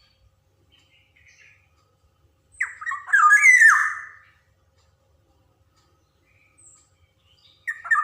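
Black-naped oriole (kepodang) calling: a harsh phrase of several quick falling notes about two and a half seconds in, a few faint notes in between, and a second phrase starting near the end.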